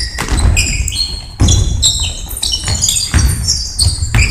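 Basketball game on a hardwood gym floor: many short, high squeaks of sneakers as players cut and stop, with a few thuds of the ball and footfalls.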